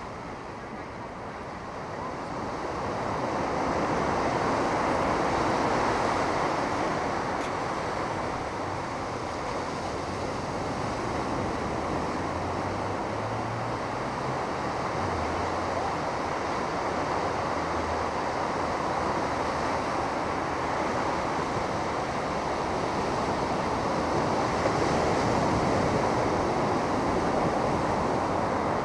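Ocean surf breaking and washing up on a sandy beach as a steady rushing wash, swelling about a third of the way in and then easing.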